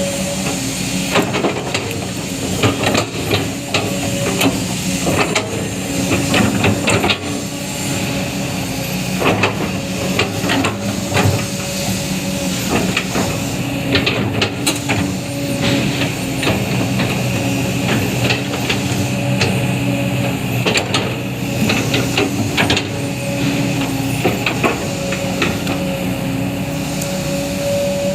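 Kobelco SK200 excavator's diesel engine running steadily, with irregular sharp knocks and clanks throughout.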